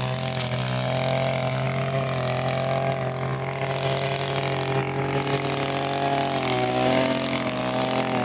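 Two-stroke brushcutter engine, a Husqvarna 143R-II, running at steady high throttle while cutting grass. Its pitch wavers slightly under load.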